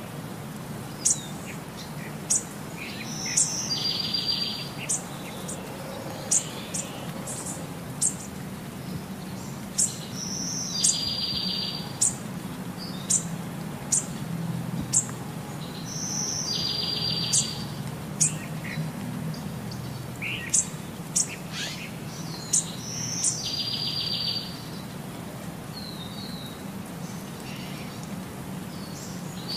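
Bird chirps repeating in a regular loop: short high chirps about once a second, with a longer rasping call every six or seven seconds.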